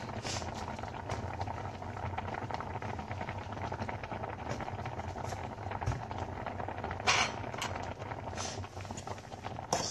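Water boiling in a steel pot of pasta on the stove, a steady bubbling crackle over a low hum, with two sharp knocks about seven seconds in and near the end.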